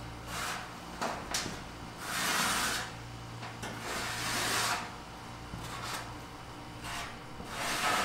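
Marker pen scraping along a galvanized sheet-metal panel as a cut line is drawn, in about four short strokes, each under a second, with a few light taps of the metal between them.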